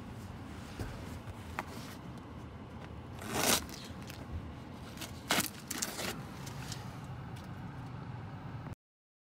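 Steady low rumble of the 2018 Toyota Auris heard from inside the cabin. A loud rustle comes about three and a half seconds in, and a cluster of clicks and scrapes follows between five and six seconds. The sound cuts off abruptly just before the end.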